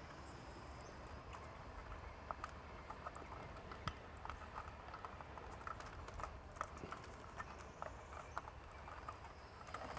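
Faint, irregular small clicks and taps from handling the security light's gasket and mounting hardware.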